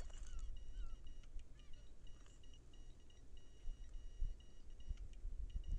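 Wind rumbling on the microphone, with faint, high, thin repeated calls of distant birds that pause a little after the middle and come back near the end.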